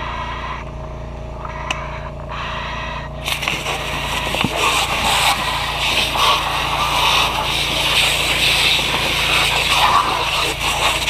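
A steady engine drone, then about three seconds in a fire hose stream opens and hisses loudly and unevenly against a burning car, throwing up steam.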